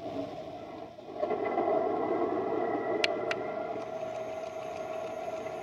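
Engine sound of a Henglong RC T-72 tank, its built-in sound unit playing a diesel tank engine through a small speaker. It gets louder about a second in, then runs steadily. Two sharp clicks come about three seconds in.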